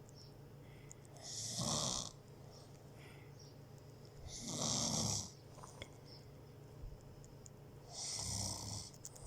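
Snoring: three long, hissing snores about three seconds apart.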